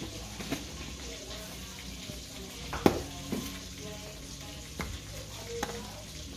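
A plastic spice tub's lid is snapped shut and the tub and jars are set down on a hard tabletop: a few short clicks and knocks, the loudest about three seconds in, over a steady hiss.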